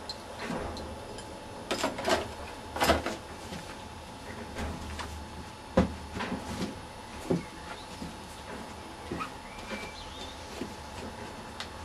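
Handling noises of objects being moved about: scattered knocks, clunks and rustles. There is a cluster of scraping sounds about two to three seconds in, and a sharp knock just before six seconds is the loudest.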